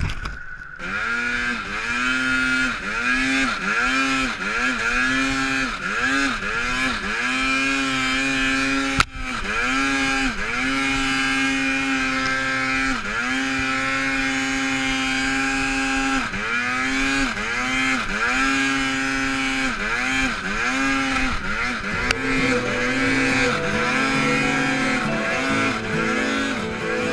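Arctic Cat M8 snowmobile's turbocharged two-stroke engine revving up and down in quick repeated throttle blips, with a few longer held runs at steady revs. A sharp knock about nine seconds in.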